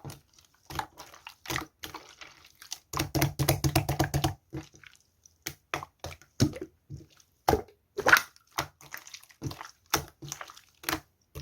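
Slime being squeezed and poked by hand: irregular sticky clicks and small pops, with a quick dense run of them about three seconds in.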